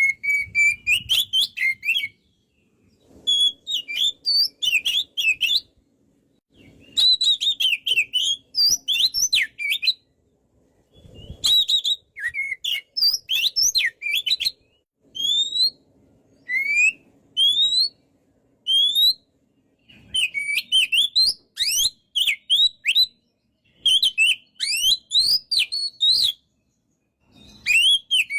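Oriental magpie-robin (kacer) singing: bouts of rapid, varied whistled notes that sweep up and down, each bout a few seconds long with short pauses between.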